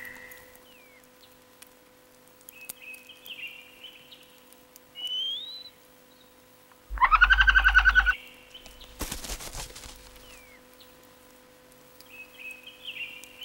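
Cartoon bird sounds: a few short high chirps, a rising whistle, then a loud, rapidly pulsing chattering call lasting about a second. A brief rustle follows.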